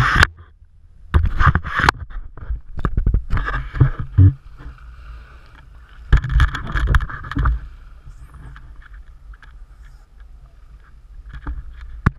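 Water sloshing and splashing around a paddleboard, with wind and handling noise on a board-mounted action camera. It comes in several uneven bursts over a low rumble.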